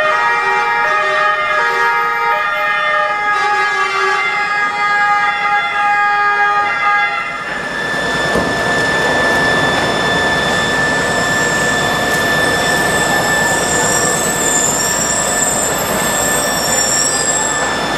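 Italian two-tone emergency sirens, several at once, each stepping between a high and a low note, stopping about seven and a half seconds in. After that a fire engine's engine runs as it moves off, with a thin steady high tone above it.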